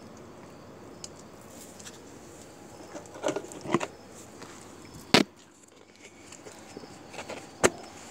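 A few sharp, short knocks over a steady background hiss: a small cluster about three seconds in, the loudest a little after five seconds, and another near the end.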